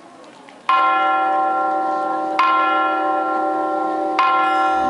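A large bell tolls three times, about one and three-quarter seconds apart, each stroke ringing on into the next.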